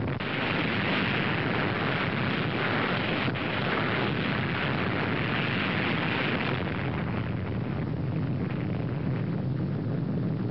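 Sustained roar of an atomic bomb explosion: a steady rumbling noise with no single sharp bang.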